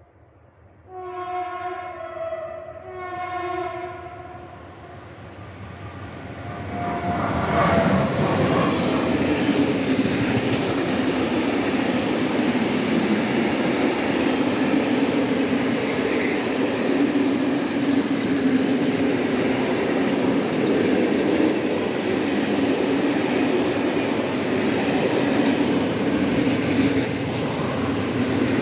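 Electric freight locomotive sounds two horn blasts about a second apart. From about seven seconds in, a long train of loaded open coal wagons rolls past close by, with steady wheel-on-rail rumble and clatter.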